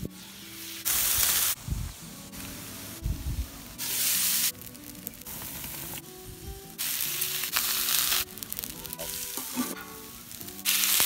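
Food sizzling on a hot flat-top griddle and grill (shrimp fried rice and steaks), the loud hiss cutting in and out in short clips, over background music with stepped low notes and a few deep bass hits.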